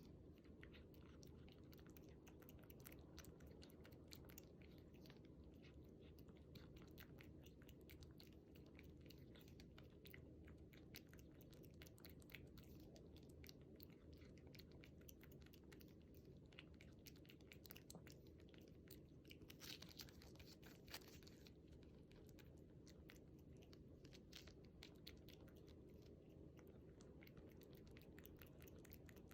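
A cat eating a Churu lickable cat treat: quick, faint wet licking and chewing clicks, with a slightly louder flurry about twenty seconds in.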